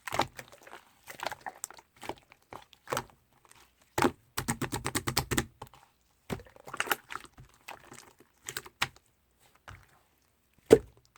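Slime being squished and poked by hand: irregular sticky clicks and crackling pops, with a quick run of them about four to five seconds in and one sharp, louder pop near the end.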